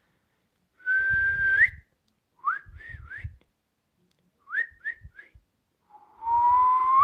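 A woman whistling through her lips with a breathy tone. She holds a note that flicks upward at its end, gives two quick sets of three short rising chirps, then holds a lower note that sweeps sharply up.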